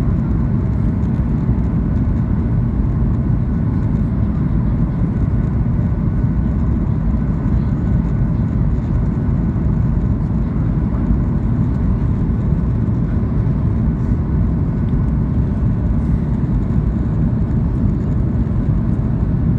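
Steady low roar of engine and airflow noise inside the cabin of a Boeing 737 in flight, with a faint steady whine above it.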